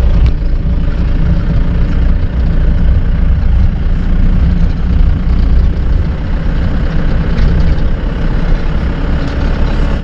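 Diesel vehicle engine running steadily, a loud low rumble with no change in pitch.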